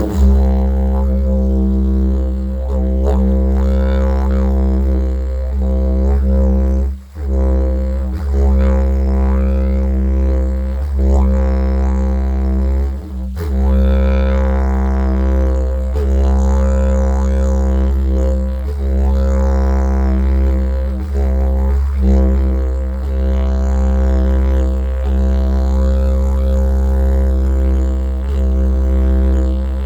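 Didgeridoo played as one continuous low drone, its overtones sweeping up and down as the mouth shapes the sound. The drone breaks briefly about 7 seconds in and again about 13 seconds in.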